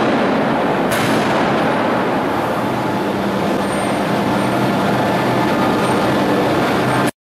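Steady, loud machinery noise from a hydraulic open-die forging hammer standing between blows, with a brief hiss about a second in. No hammer blows are heard. The sound cuts off suddenly near the end.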